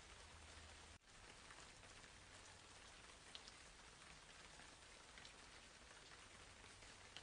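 Faint steady hiss with scattered soft ticks, dropping out for an instant about a second in.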